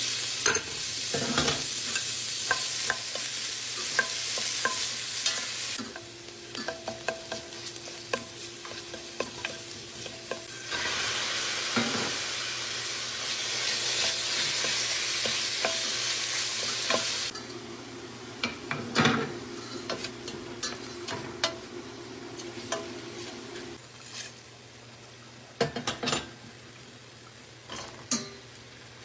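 Diced red onion, then chunks of chicken breast, sizzling in olive oil in a stainless steel pot and stirred with a wooden spoon, with many scattered knocks and scrapes of the spoon. The sizzle is loud in two long stretches and drops away in between and after. Near the end a cup of canned chickpeas tumbles into the pot with a few clatters.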